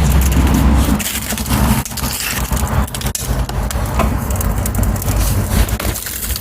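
Dry twigs and wood crackling and snapping in a small stove fire that is just being lit, with irregular sharp pops. A low rumble sits under it in the first second.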